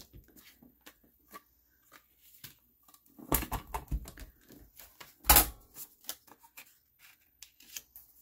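Hard plastic knocks and clatter as a stamping platform with a clear acrylic lid is set down and handled on a craft mat, among light taps and paper handling. A cluster of knocks comes a little over three seconds in, and the loudest single knock at about five seconds.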